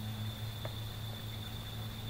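Insects trilling steadily at one high pitch, over a low steady hum.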